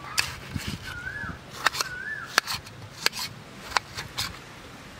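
Knife slicing watermelon on a steel plate, the blade clicking sharply against the metal about six times at uneven intervals. A bird gives two short chirps about one and two seconds in.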